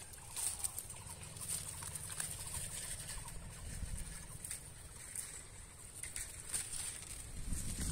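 Thin metal rod being worked into a muddy hole among weeds and dry leaves: scattered soft clicks, scrapes and rustles, over a faint steady high-pitched whine.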